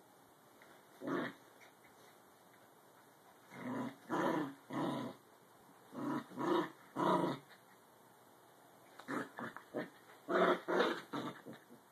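Two small dogs growling in short, gruff bursts during rough play over a toy: one burst about a second in, two groups of three around four and six seconds in, and a quicker run of them from about nine seconds on.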